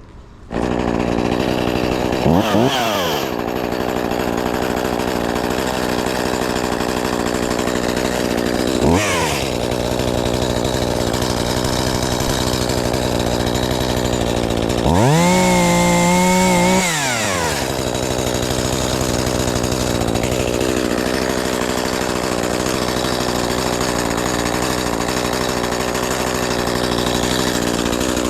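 Shindaiwa 280TS two-stroke top-handle chainsaw running at idle, coming on suddenly and blipped up to speed and back twice, then held at high revs for about two seconds before dropping back to idle.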